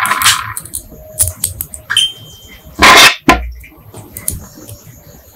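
Cartridges being pressed one at a time into a pistol magazine: small metallic clicks, one with a brief ring, and a louder sliding snap about three seconds in.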